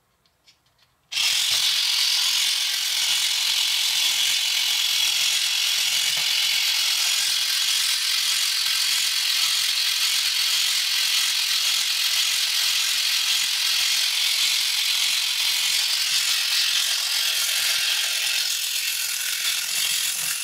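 Small battery-powered electric motor driving the plastic gear train of a flying eagle toy's wing-flapping mechanism, starting about a second in and running steadily with a fast ratcheting whir.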